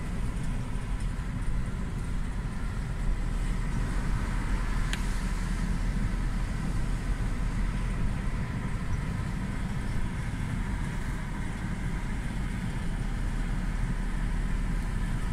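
Steady engine and road noise heard from inside a moving car's cabin, with a low rumble throughout. There is one brief tick about five seconds in.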